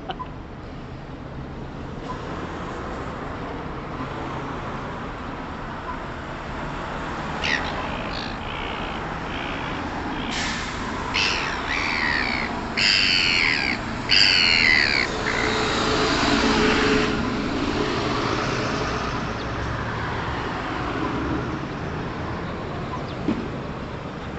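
Seagulls giving a run of harsh calls, a few short ones followed by louder, longer ones, over a steady rumble of traffic.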